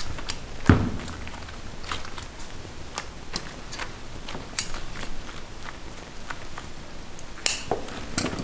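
Irregular knocks and clicks of handmade sugar candy being worked by hand on a work table, with a heavier thump about a second in and two sharp clacks near the end.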